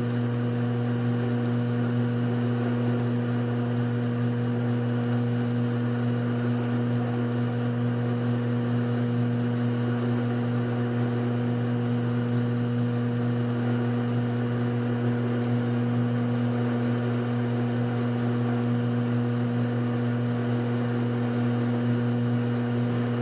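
Taig lathe running at a steady speed with a constant motor hum while it takes a turning cut on aluminum.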